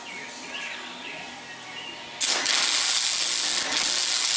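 Wire-feed welder arc struck on steel about two seconds in, hissing and crackling steadily as a weld is laid, with a brief dip partway through.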